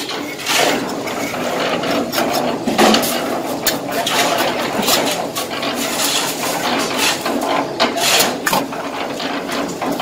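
Steel trowel scraping mortar and knocking against hollow clay bricks as they are buttered and set, in a run of short scrapes and taps.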